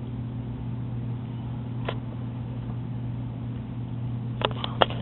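A steady low hum with no rise and fall, with one sharp click about two seconds in and a quick run of clicks near the end.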